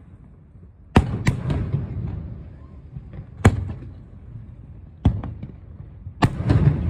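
Aerial firework shells bursting: a string of sharp bangs, about a second in, then at irregular intervals of one to two seconds, each followed by a low rolling rumble. The bursts come closer together near the end.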